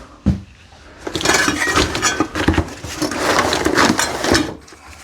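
A single knock, then loose metal hand tools clinking and clattering against each other for about three seconds as they are rummaged through in a box.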